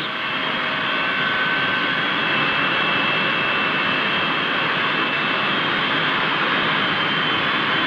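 Steam-plant machinery in an aircraft carrier's engine room, running with a steady roar and a few high, steady whining tones over it.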